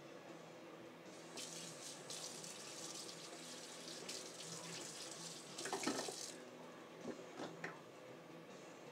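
Kitchen tap running water into the sink for about five seconds, starting a second and a half in and stopping suddenly, with a clatter of dishes near the end of the running and two light clinks after it.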